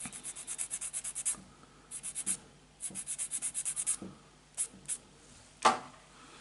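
Sanding stick rubbed quickly back and forth over a small plastic model-kit part, about eight strokes a second, in three short runs with pauses between them. Two brief strokes follow, then a single knock near the end, the loudest sound in the stretch.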